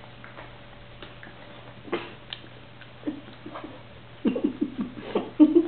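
A few soft clicks, then, from about four seconds in, a quick run of short, low vocal sounds.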